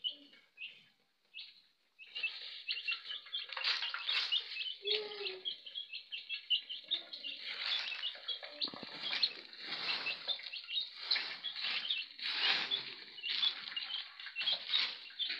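A brood of young chicks peeping rapidly and continuously while they peck at their food, with scratchy rustling mixed in. The peeping breaks off briefly near the start, then runs on densely.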